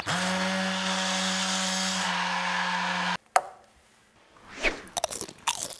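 Immersion hand blender motor running at a steady pitch while pureeing cooked zucchini and carrots into soup, then switched off abruptly about three seconds in.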